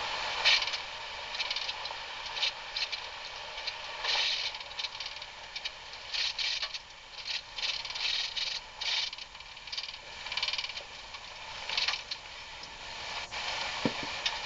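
Vehicle rattling and clattering as it jolts along a rough dirt trail, in irregular bursts of noise.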